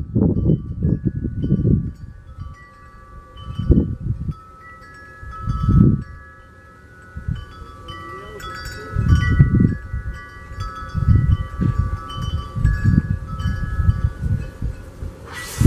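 Wind chimes ringing irregularly, several tones overlapping, while gusts of wind buffet the microphone in irregular low rumbles.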